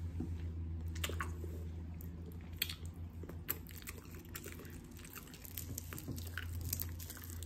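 A person chewing a mouthful of food close to the microphone, with scattered short wet mouth clicks over a steady low hum.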